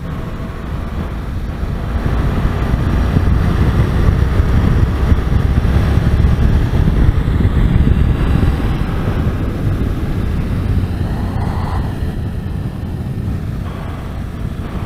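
Motorcycle under way, heard from the bike's own camera: wind buffeting the microphone over the running engine. The rush grows louder about two seconds in and eases off over the last few seconds.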